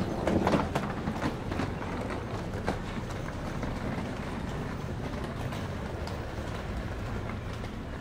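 Outdoor urban ambience: a steady background rumble and hiss, with a few sharp knocks or clicks in the first second and one more a few seconds in.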